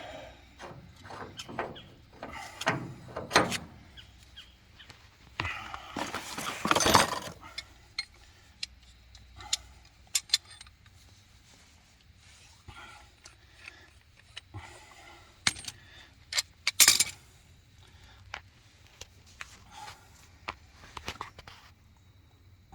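Metal pipe fittings (threaded nipples, a shut-off valve and a flange) being handled and set down, a run of irregular clinks and knocks, with a longer scraping, rattling stretch about six seconds in and a loud cluster of clanks past the middle.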